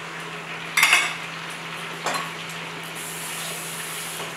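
Ribeye steak sizzling steadily in butter in a skillet, with a sharp clatter of metal utensils about a second in and a lighter clink about a second later.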